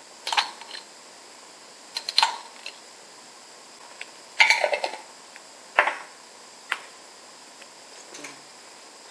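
Garlic powder shaker being handled and shaken over a dish: a handful of short shakes and clicks spaced a second or two apart, the loudest cluster about halfway through.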